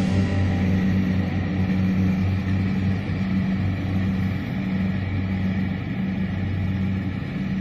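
Kubota DC-70 combine harvester's diesel engine running steadily under harvesting load: a continuous low drone.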